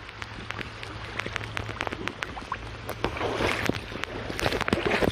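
Splashing and dripping in a shallow brook: water running with many small sharp drips and splashes, and louder sloshing splashes about three seconds in and again near the end.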